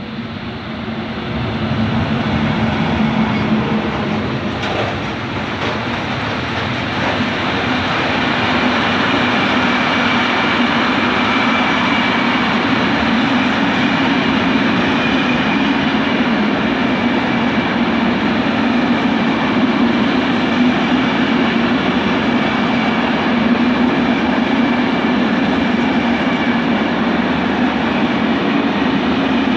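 Freight train hauled by an FS E652 electric locomotive passing close by, a long string of hopper and empty flat wagons rolling over the rails with a steady rumble and rattle. It grows louder over the first two seconds as the locomotive draws level, then holds steady as the wagons go by.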